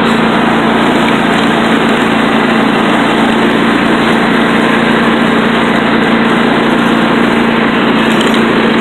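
Riding lawn mower engine running steadily at a constant pitch while the mower drives across grass.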